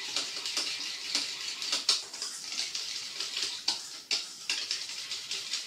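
A utensil stirring and scraping a wet, thickening cream mixture of beeswax-oil and distilled water in a stainless steel bowl, a constant swishing with a few sharp clicks where it knocks the bowl. The mixture is being kept stirred so it sets into a smooth, even cream as it cools.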